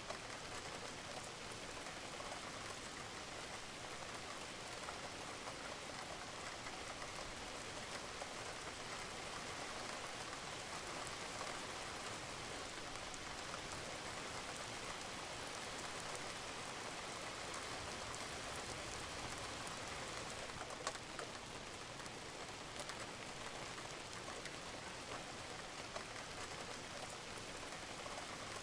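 Steady rain falling on a roof, with scattered individual drips ticking through it and one sharper drip about three-quarters of the way through.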